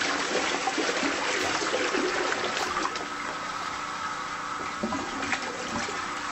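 Toilet flushing: a steady rush of water, louder for the first few seconds and then settling to a lower rush.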